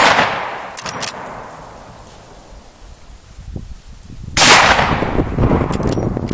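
Marlin 1894 lever-action rifle in .44 Magnum firing one shot about four seconds in, the report echoing and fading over the next couple of seconds. The tail of an earlier shot is fading at the start. Sharp metallic clicks of the lever being worked come about a second in and again near the end.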